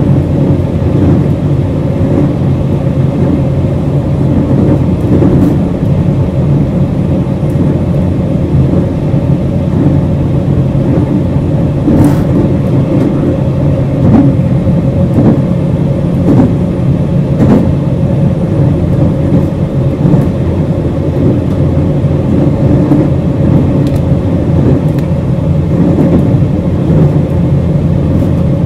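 Inside a JR Hokkaido 721 series 0-subseries electric multiple unit running at steady speed: a loud, even rumble of wheels on rail with a steady hum from its thyristor phase-controlled traction equipment, broken now and then by sharp clicks from the track.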